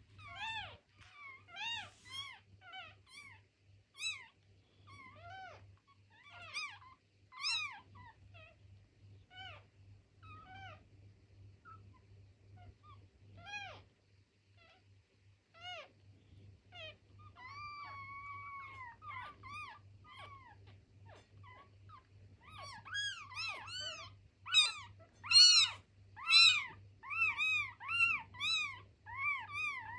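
Two-day-old kittens mewing: many short, high cries, each rising and falling in pitch. They thin out for a while, with one longer steady call in the middle, then come fast and loudest near the end. A faint steady low hum lies underneath.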